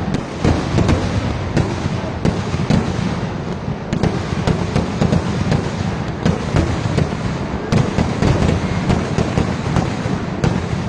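Vedikkettu fireworks barrage: shells and crackers fired in rapid succession from the ground, a dense, unbroken run of loud bangs and crackling, many each second.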